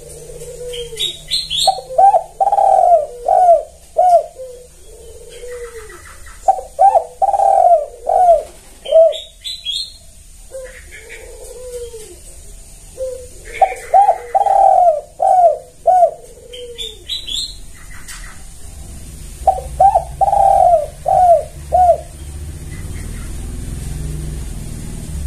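Spotted dove cooing in phrases of several rhythmic, arching coos, four phrases about five to six seconds apart. Fainter high chirps come in between the phrases.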